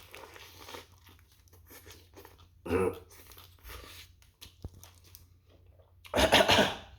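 Quiet chewing and wrapper crinkling from someone eating a sandwich, with a short throaty sound about three seconds in. Near the end comes a loud burp.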